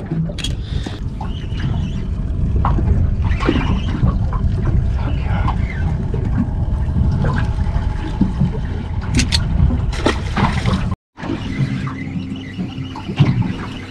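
Steady low rumbling noise of wind and water around a small boat at sea, with scattered clicks and knocks of fishing gear being handled. The sound drops out for an instant about eleven seconds in.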